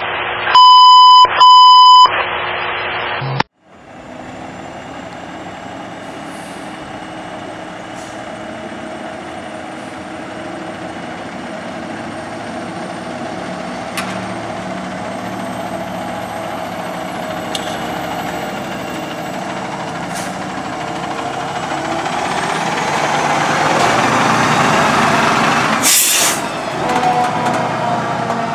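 Two loud electronic beeps at the start, then a fire engine's diesel engine running steadily and growing louder as it pulls out, with a short, sharp air-brake hiss near the end.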